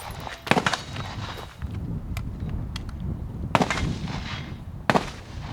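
Gunshots from a shooting range: four single sharp reports at uneven gaps, one about half a second in, one around two seconds, and two close together near the end.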